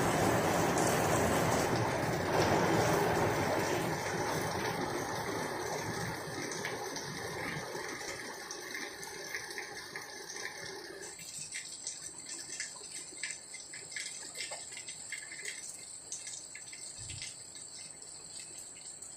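Heavy rain falling on flat concrete rooftops: a dense, steady hiss that slowly eases. About eleven seconds in it drops suddenly to lighter rain, with separate drops pattering.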